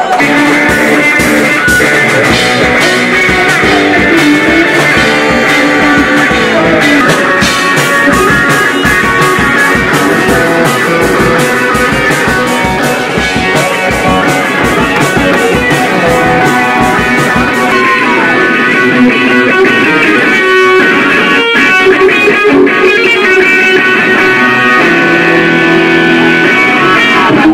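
Rock music: electric guitar and bass over a steady drum beat, played loud.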